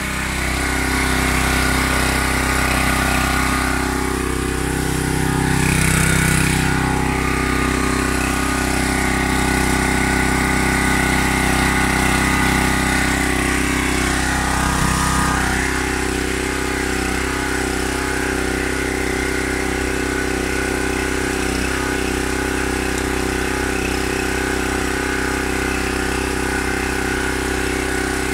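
Mechpro 7 hp pressure washer's single-cylinder petrol engine running steadily. It is a little louder and hissier for the first half, then settles to a slightly quieter, even note about halfway through.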